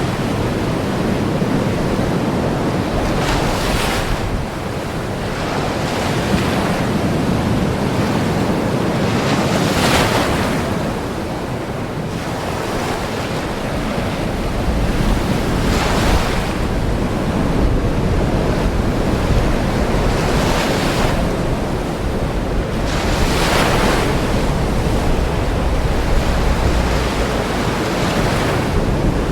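Ocean waves breaking on a shore: a continuous wash of surf, with a wave swelling and breaking every several seconds.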